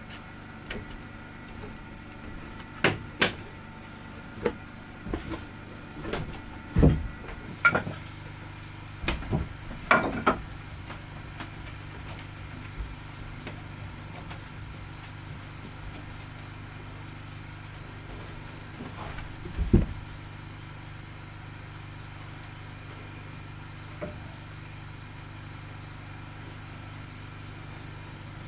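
Scattered sharp knocks and thumps of wood on wood, bunched in the first third with a loud single knock about two-thirds in, over a steady low hum.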